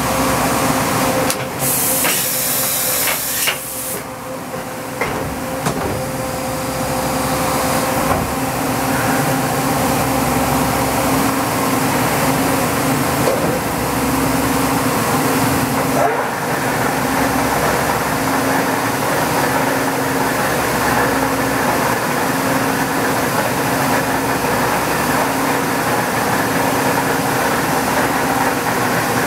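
Toyoda FH60 horizontal machining center changing a tool with its automatic tool changer: a sharp blast of hissing air a couple of seconds in, along with a few clunks. The machine then runs on with a steady mechanical hum.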